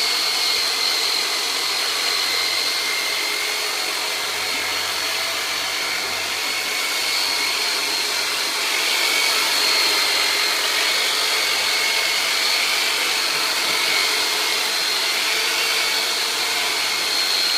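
Handheld electric vibration massager running continuously with a steady high motor whine as it is worked on the patient.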